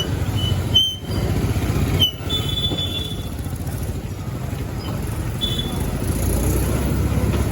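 Busy road traffic heard from a moving motorcycle, with wind rushing on the helmet-mounted microphone. A few short, high beeps sound in the first half.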